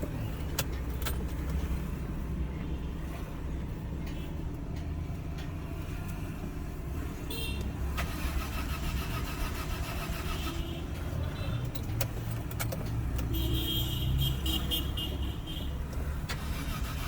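A car engine running steadily, with a few clicks and a rapid high chirping for a few seconds near the end.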